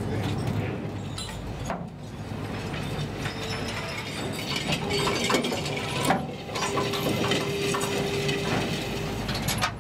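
Fishing cutter's deck winch and net gear working the trawl net: rapid mechanical clattering and ratcheting over the steady drone of the boat's engine, with a steady whine through the middle.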